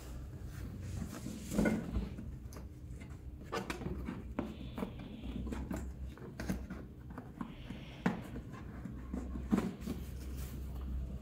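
Cardboard shoebox being handled and turned on a tiled floor: scattered taps and knocks with a few short scrapes, over a low steady hum.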